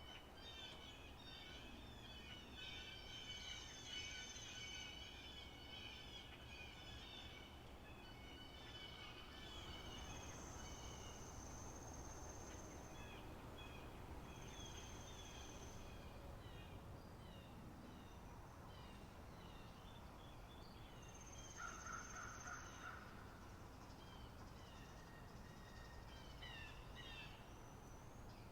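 Faint spring-meadow ambience: many small birds chirping and twittering, busiest in the first ten seconds. Several times a steady high insect trill runs for two or three seconds.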